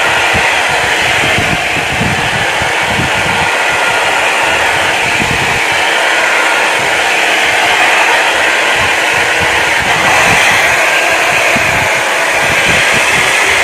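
Small foldable hot-and-cold hair dryer blowing steadily as it is used to dry wet hair, an even rushing hiss with uneven low rumbles from the airflow.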